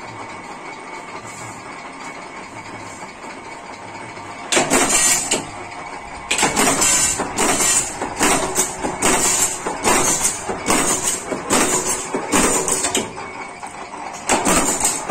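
Mechanical power press running with a steady hum, then from about four and a half seconds in punching spoon blanks out of steel strip: a rapid run of loud metal strokes, about one and a half a second, with a short break near the end.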